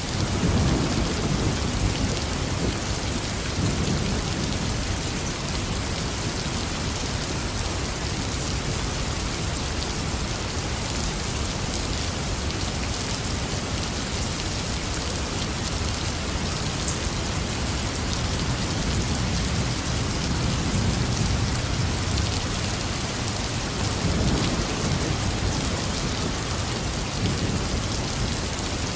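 Heavy rain falling steadily, with low thunder rumbles swelling up at the start, about four seconds in, and twice more in the second half.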